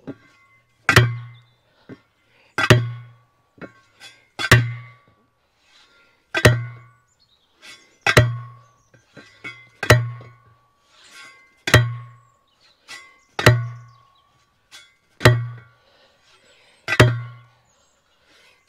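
Manual steel post driver dropped repeatedly onto a wooden fence post: ten heavy strokes at an even pace of about one every two seconds, each a dull thud with a short metallic ring.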